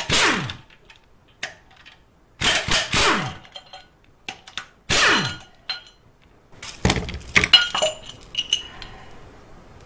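A power ratchet running in short bursts and winding down after each, backing the bolts of a Subaru EJ257 block's tensioner support bracket out; sharp metal clinks of the loosened bolts and bracket come near the end.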